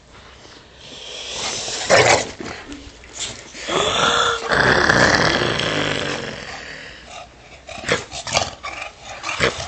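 Bulldog growling in play while tugging on a cloth toy. The longest and loudest growl starts about four seconds in and lasts about two seconds.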